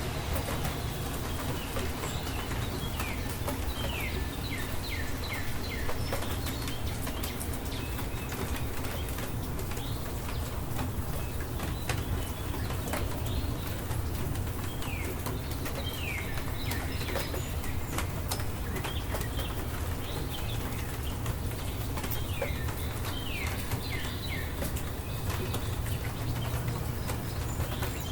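Steady rain with many small drops ticking, over a low rumble. A bird calls several times in short runs of quick falling chirps.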